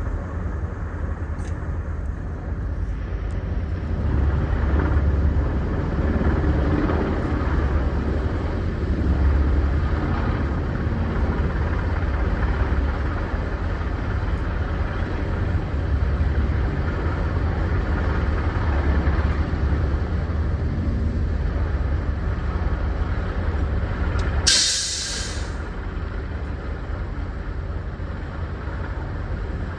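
Steady low engine rumble with a wash of wind-like noise, and one short, loud burst of hiss about 25 seconds in.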